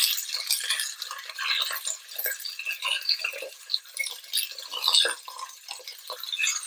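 Cubes of pork sizzling as they are dropped one by one into hot oil in a stainless steel saucepan to be seared brown. Metal tongs click against the pan and the plate, loudest about five seconds in.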